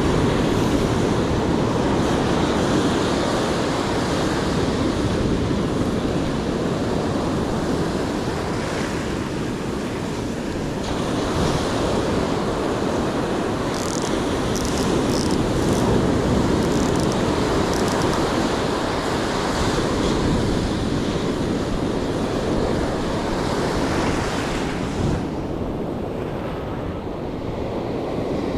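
Ocean surf breaking and washing up the beach, a continuous rush that swells and eases slowly, dipping near the middle and again near the end.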